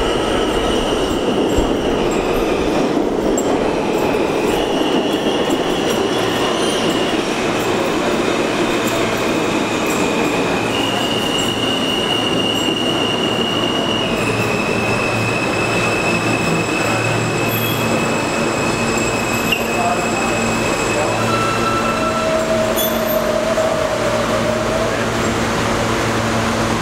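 R160 subway train entering an underground station and braking to a stop, with steady wheel-and-rail rumble. High whines step from pitch to pitch as it slows and fade out near the end, leaving a low steady hum from the stopped train.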